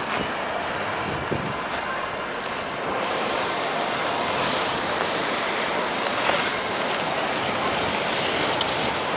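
Ice skate blades gliding and scraping on rink ice, a steady rushing noise that grows a little louder about three seconds in, with the general din of skaters in the hall behind it.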